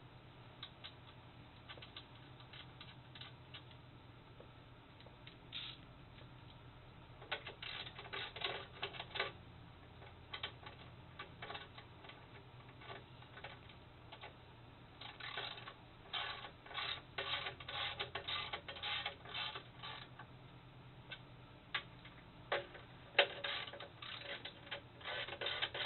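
Socket ratchet clicking in quick runs of strokes, tightening nylon lock nuts onto the chair pedestal's mounting bolts. A low steady hum sits underneath.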